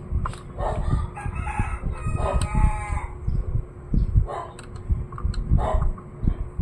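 An animal call with many overtones, held for about a second a little over two seconds in, with a few shorter calls around it. Repeated low knocks and handling noise run underneath.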